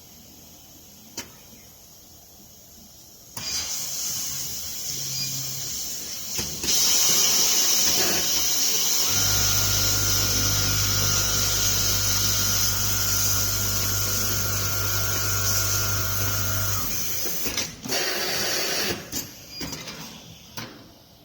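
Automatic elastic waistband sewing machine with a Pegasus sewing head working through a cycle. A hiss comes in a few seconds in and grows louder. The sewing head then runs at a steady speed for about eight seconds with a steady hum, stops, and a few clicks and knocks follow.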